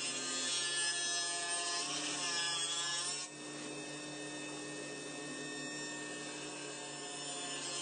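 Table saw running and cutting a wooden board, louder for the first three seconds or so. The cut eases off suddenly, and the saw keeps running.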